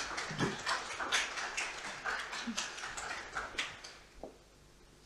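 Scattered applause from a small audience, dying away about four seconds in.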